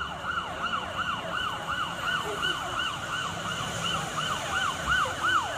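Fire engine siren on a fast yelp: a quick up-and-down sweep repeated about two and a half times a second.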